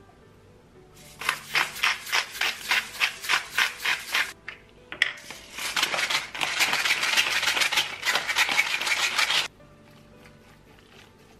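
Silicone spatula mixing ground beef and pork with chopped onion in a glass bowl. First come rhythmic strokes about four a second, then a few seconds of faster, continuous mixing that stops suddenly. Soft background music plays underneath.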